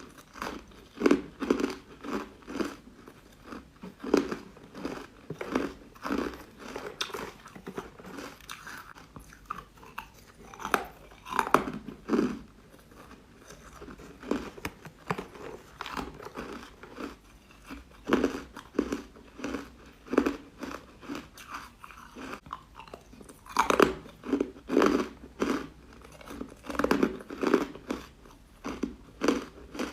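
Someone biting and chewing crunchy, powdery ice bites close to the microphone: repeated crisp crunches in quick runs, with a quieter stretch in the middle.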